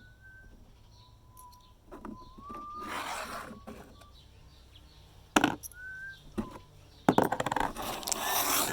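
A person whistling a few short, held notes, one sliding slightly upward, over handling noises: a rustle about three seconds in, a sharp knock a little after five seconds, and a loud crinkling rustle near the end.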